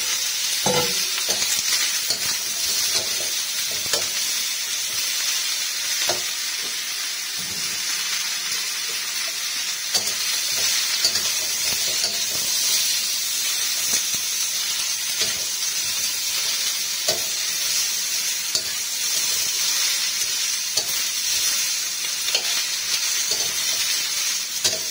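Parboiled beef, carrots, daikon and onion sizzling in a steel wok over a gas flame while being stir-fried with a metal spatula, which scrapes and clicks against the pan now and then. There is a ringing metal clink about a second in.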